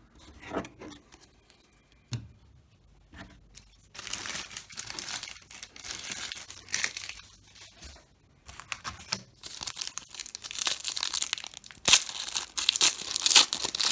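Wrappers of baseball card packs being torn open and crinkled by hand, starting about four seconds in. There is a short pause, then the crinkling grows louder toward the end.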